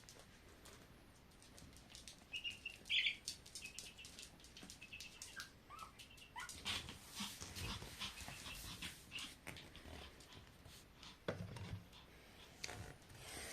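A puppy moving about near a young chick: many scattered light clicks and taps, a few short high peeps early on, and a brief low dog sound near the end.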